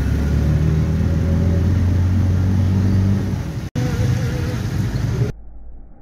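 A small vehicle engine running steadily close by in traffic, under a steady hiss of rain and wet road. About five seconds in it drops abruptly to quieter, muffled traffic sound.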